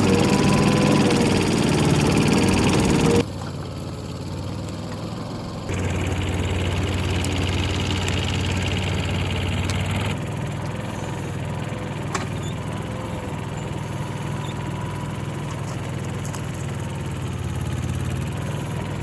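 Land-clearing machinery engines running steadily, in several edited clips that cut abruptly about 3, 6 and 10 seconds in. The first clip is louder with a steady whine, and the later ones are a lower engine hum.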